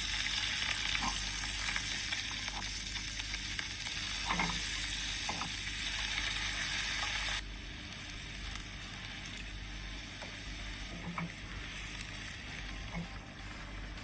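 Food sizzling as it fries in hot oil, a steady hiss with a few light taps. About seven seconds in, the sizzle suddenly drops to a quieter level.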